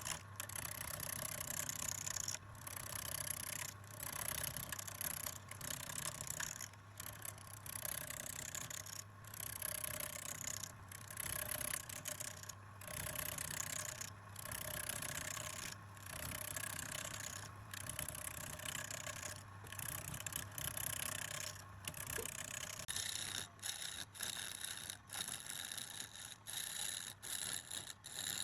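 A turning chisel scraping and cutting into wood turning on a lathe. It goes in strokes broken by short pauses every second or two.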